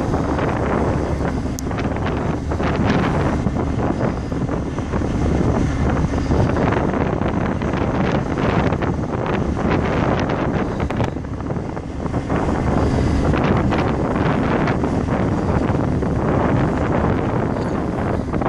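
Wind buffeting the microphone on the deck of a moving ship: a loud, steady rush with gusts that rise and fall.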